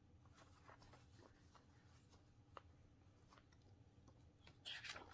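Near silence with a few faint small ticks, then paper rustling near the end as a picture-book page is handled and turned.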